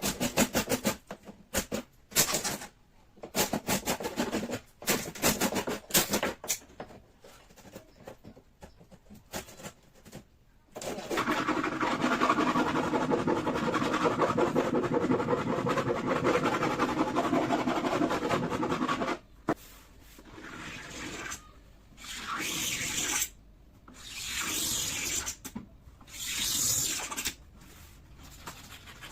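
Wood being sanded by hand in quick back-and-forth strokes, then a small power tool running steadily for about eight seconds, then a few short hissing bursts.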